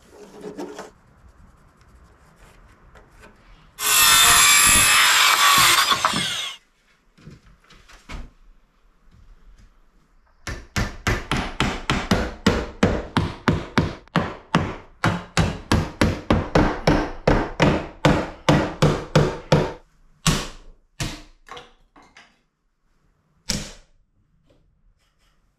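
A power saw cutting wood for about two seconds, then a long run of hammer blows, about three a second, nailing wooden furring strips into a door frame, ending with a few single blows.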